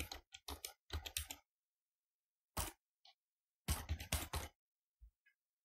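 Typing a password on a computer keyboard: quick runs of keystrokes with short pauses between them, then a soft thump about five seconds in.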